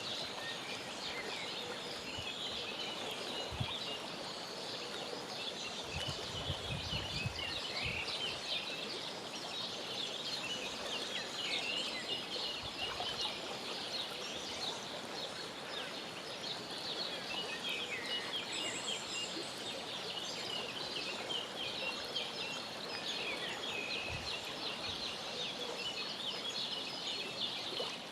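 Mallard ducklings peeping continuously, a dense chatter of short high calls. A few soft low thumps come through about six to eight seconds in and again later on.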